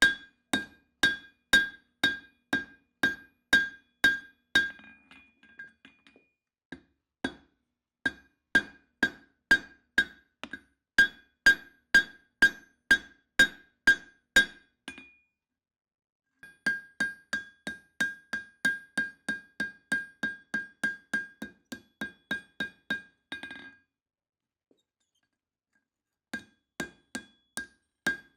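Hand hammer striking hot steel on an anvil, about two blows a second with a bright ring after each. The blows come in runs of several seconds broken by short pauses, and the last long run is faster.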